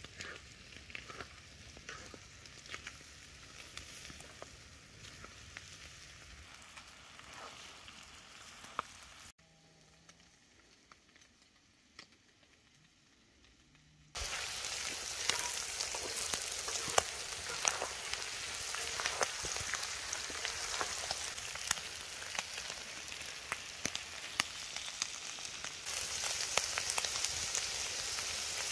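Lamb liver, heart and potato pieces frying on a hot iron saj, sizzling with many small pops. Quieter for a few seconds before the middle, then much louder from about halfway through.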